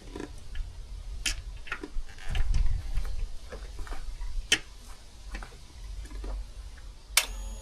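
Scattered metallic clicks and taps of hand tools and the motorcycle gear shift lever being worked back onto its splined shaft, two of them sharper knocks. A short steady buzzing tone begins near the end.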